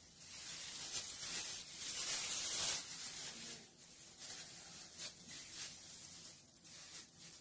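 Thin plastic film rustling and crinkling under the hands as a ground-beef roll is rolled up in it, loudest in the first few seconds and then fainter and uneven.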